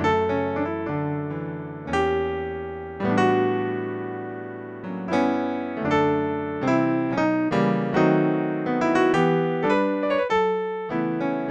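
Gospel-style chords played from a MIDI keyboard on an electric-piano sound from the Pocket Gospel Sound Pack app, with low bass notes under them. Each chord is struck and left to fade, a new one roughly every second or two.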